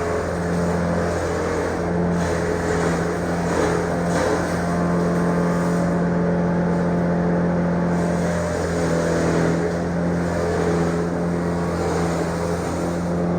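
A motor-driven machine running steadily with a constant hum, and a rougher noise over it that swells and fades every second or two.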